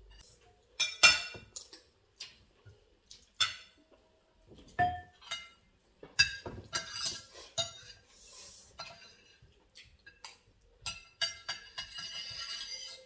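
Metal spoons and forks clinking and scraping against ceramic plates while people eat: irregular sharp clinks with a short ring, and a longer scrape near the end.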